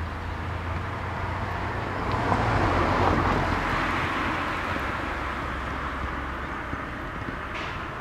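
A passing vehicle: a broad rushing noise swells to a peak about three seconds in and slowly fades, over a steady low rumble.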